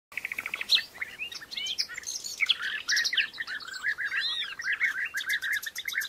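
Several birds singing and calling at once, with overlapping quick chirps and short whistled notes. In the second half there is a steady run of rapid repeated notes.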